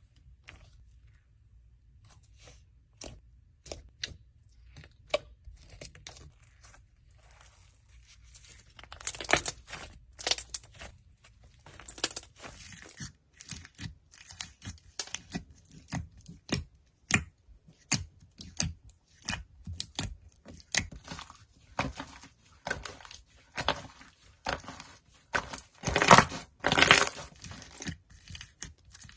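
Fingers squishing, pressing and poking textured slime, giving irregular sharp clicks, crackles and small pops. Denser, louder crackling comes about nine seconds in and again near the end.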